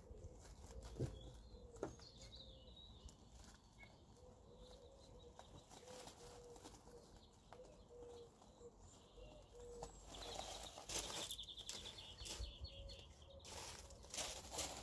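Quiet outdoor ambience with a few faint bird-like chirps and scattered soft ticks, and a louder rustling, rubbing noise for a second or so about ten seconds in.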